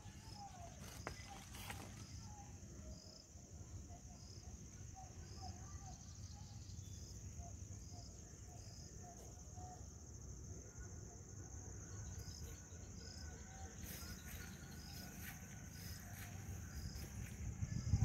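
Insects droning steadily at a high pitch, with a faint chirp repeating about once a second, over a low rumble on the microphone.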